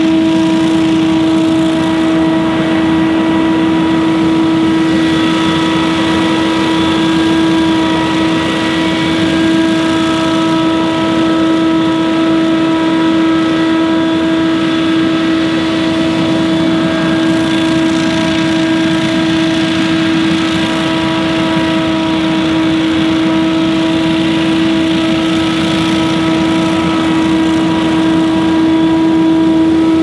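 Gas-engine stand-on leaf blower running steadily, a loud even hum that holds one constant pitch.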